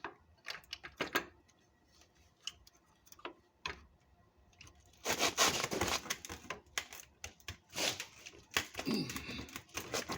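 Irregular clicks, taps and scraping of a plastic headlight bracket being pushed and worked against a metal bracket, with a longer stretch of scraping about halfway through. The bracket is catching on a screw that it will not clear.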